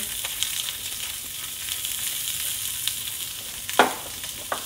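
Sliced bell peppers and onion sizzling steadily in olive oil in a very hot cast iron skillet. A sharp knock a little before the end is the loudest sound, with a lighter knock just after it.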